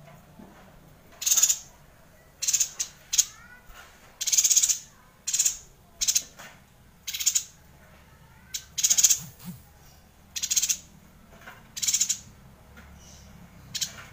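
Yuhina calling: about a dozen short, high-pitched bursts, roughly one a second, with a few faint falling chirps between them.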